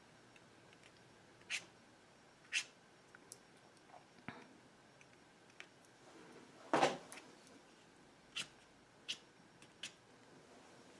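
White paint marker drawing quick whisker strokes on an acrylic-painted surface: about seven short strokes a second or so apart, the loudest one in the middle.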